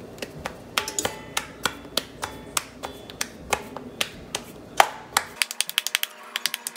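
Bajra (pearl millet) dough being patted flat between floured palms into a rotla: a run of soft, sharp slaps, about three a second at first and quicker near the end.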